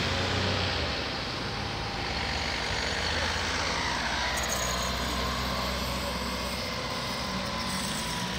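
Van engines running at low speed close by, a steady low hum.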